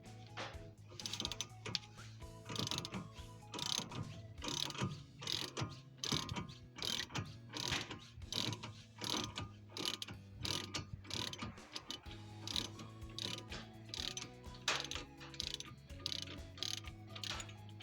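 Ratchet wrench clicking in repeated short runs of strokes as bolts are worked on a brake and hub assembly.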